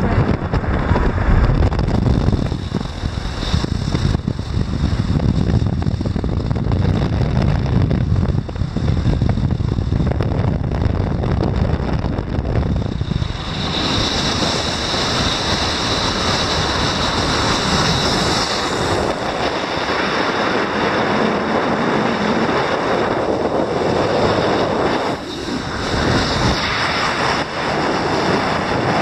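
Wind buffeting a microphone held out of the window of a moving car, mixed with the car's road noise. A heavy low rumble gives way, about 13 seconds in, to a higher, hissing rush.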